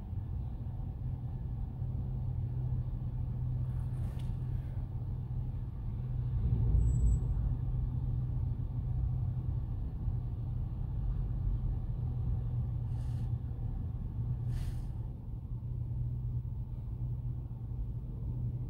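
Steady low rumble of a car moving, swelling for a moment about six seconds in, with a few faint clicks.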